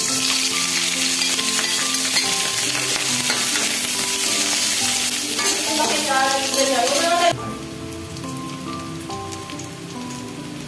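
Sliced onion, garlic and ginger sizzling in hot oil in a wok as they are tipped in and stirred with tongs: loud at first, then settling to a quieter sizzle about seven seconds in.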